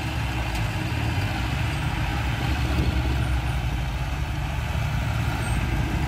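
Heavy diesel engines of a stuck dump truck and a small crawler bulldozer running together, a steady low drone, while the bulldozer pushes to free the truck from the mud.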